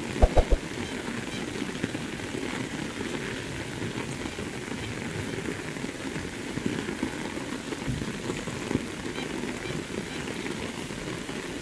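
Very heavy rain falling steadily on a road, grass and puddles, an even dense hiss. A quick run of three or four sharp clicks sounds just after the start.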